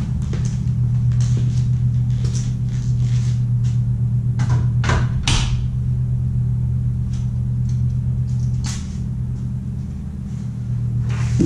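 A steady low hum with scattered knocks and clatter as fishing rods are handled and pulled from a rod rack. The hum weakens briefly near the end.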